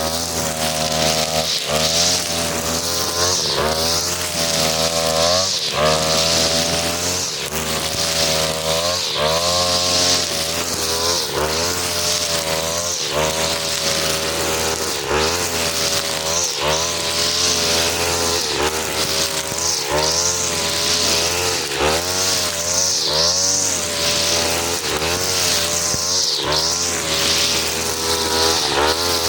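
43cc two-stroke brush cutter spinning four strands of 2.5 mm nylon trimmer line, its engine revving up and dropping back over and over, every second or two, as it cuts grass, with a steady high whirring hiss of the line.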